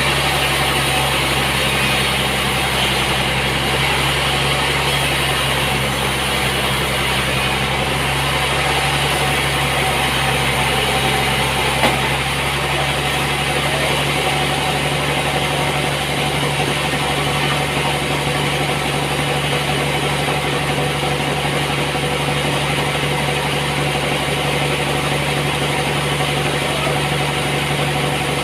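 Sawmill machinery running steadily with a constant mechanical hum, and a single click about twelve seconds in.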